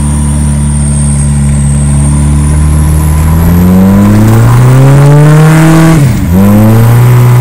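Turbocharged Ford Fiesta engine heard from inside the car, held steady and then revving up under acceleration for about three seconds, with a high turbo whistle climbing above it. About six seconds in the revs drop briefly, a gear change, and the engine pulls again at lower revs.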